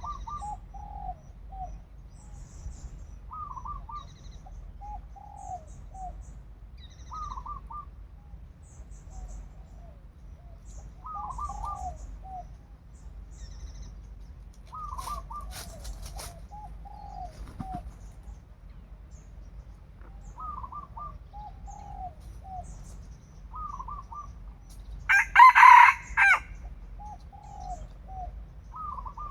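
Roosters calling, with short clucking calls repeated every couple of seconds and one loud crow about 25 seconds in. A brief rustle comes about halfway through.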